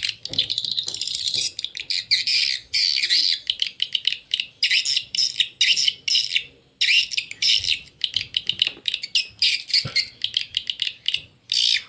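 Recorded swiftlet calls, 'SP Triple Queen', played through horn tweeters: rapid, high-pitched twittering chirps and clicks with short breaks. This is a lure sound used to draw young swiftlets into a swiftlet house.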